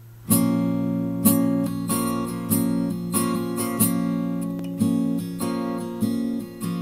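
Acoustic guitar strummed by hand, chord after chord, each stroke ringing on into the next. It starts about a third of a second in.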